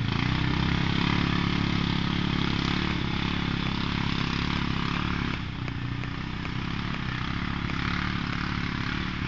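Quad bike (ATV) engine idling steadily, the level dropping slightly about five seconds in.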